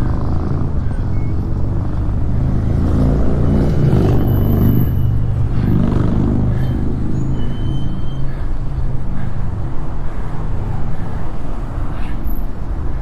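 Wind noise and road traffic heard from a road bike riding fast alongside cars: a steady low rumble, with a vehicle's engine swelling louder a few seconds in as it passes close by.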